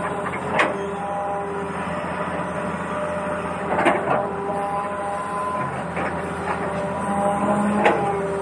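A small electric motor in a toy excavator whirring steadily, with short held tones that step in pitch. Three sharp clicks fall about three to four seconds apart.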